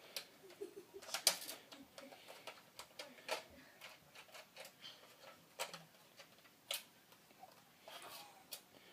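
Nerf blasters being handled and fired: about a dozen light, irregular clicks and knocks, the loudest about a second in.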